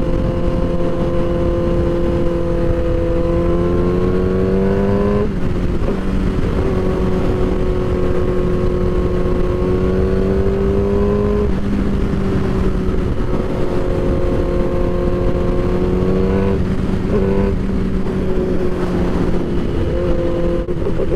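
2006 Suzuki GSX-R1000's inline-four engine under way on the road, its pitch climbing gradually and then dropping suddenly at each upshift, three times.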